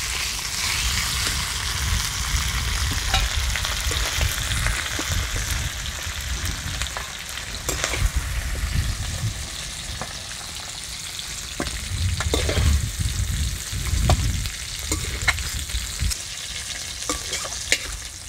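Broken fish heads sizzling in hot oil in an aluminium wok, with a metal slotted spatula scraping and clinking as the pieces are stirred and lifted out onto a steel plate. The sizzle is strongest in the first few seconds. Wind rumbles on the microphone underneath.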